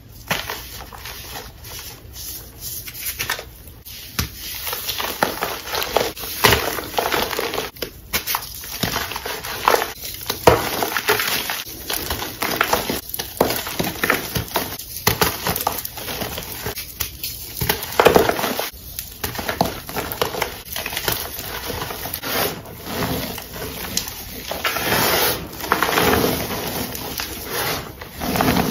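Chalk blocks crushed and crumbled by hand into loose powder, making a string of irregular crunches and soft powdery crumbling. A few crunches stand out as louder.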